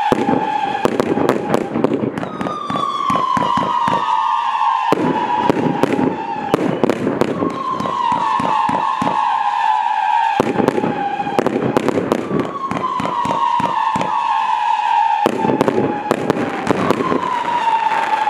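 30 mm, 30-shot firework cake (Celtic Fireworks Spunky Monkey) firing whistling shots one after another. Each shot gives a whistle that falls slowly in pitch over two or three seconds, a new one starting before the last dies away. Sharp cracks and pops from the bursts come throughout.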